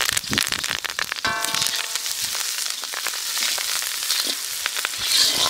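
Food frying in hot oil in a pan, a steady sizzle with many sharp crackles and pops.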